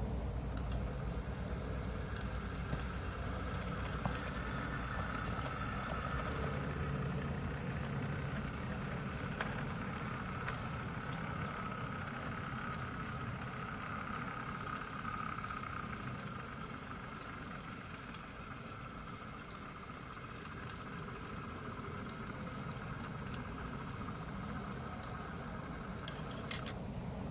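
Model British Railways Class 08 diesel shunter running slowly along the layout track: a steady diesel engine rumble with a faint whine over it that fades away about two-thirds of the way through, and a few light clicks.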